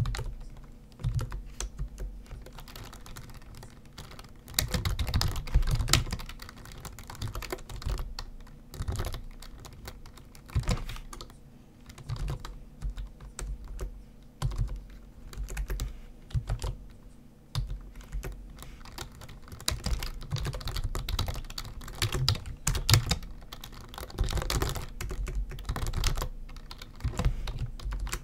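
Typing on a computer keyboard: quick runs of key clicks in bursts of a few seconds, broken by short pauses.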